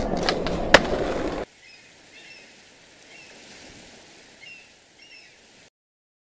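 Skateboard wheels rolling, with one sharp click, cutting off suddenly about a second and a half in. Then faint outdoor ambience with short bird chirps now and then.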